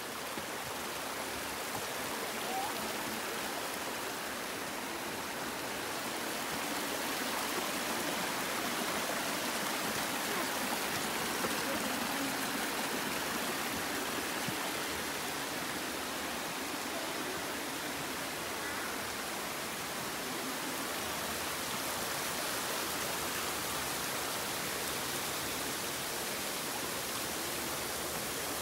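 Mountain stream flowing, a steady, even noise of running water.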